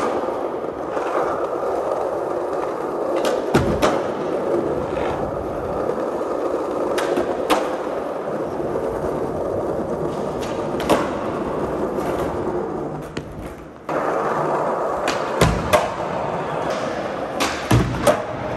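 Skateboard wheels rolling on a concrete parking-garage floor, with several sharp clacks of the board popping and landing on tricks.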